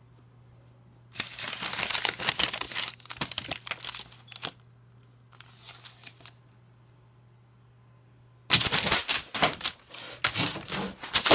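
Notebook paper being crumpled and torn, in crackling, rustling bursts: about three seconds of it starting a second in, a short softer bit around the middle, and a louder spell near the end.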